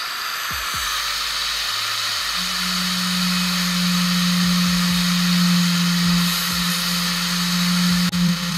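Electric angle grinder running steadily while its disc grinds the steel swing arm of a motorcycle, stripping it bare for repainting. A strong steady hum joins the grinding hiss about two and a half seconds in.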